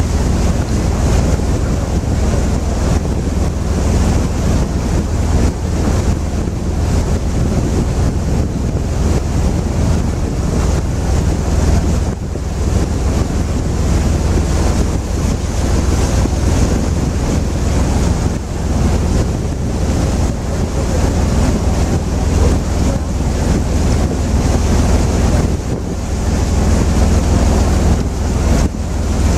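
Wind buffeting the microphone aboard a moving river tour boat, over a steady low drone from the boat and its passage through the water.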